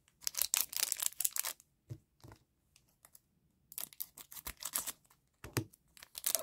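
Foil trading-card pack wrapper crinkling and crackling as it is handled and snipped open with scissors, in three short spells with a pause in between.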